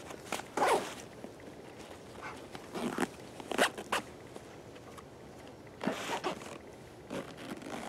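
Zippers on a nylon 5.11 backpack being pulled open and shut in several short strokes as pockets are closed and opened.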